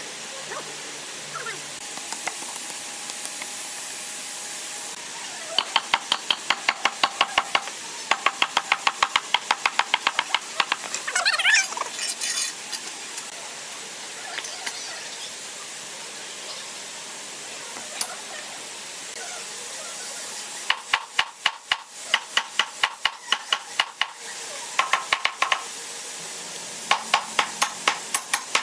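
Runs of quick metallic clicks, about five or six a second, in several bursts, from long steel bar clamps being worked tight across a glued-up wooden panel.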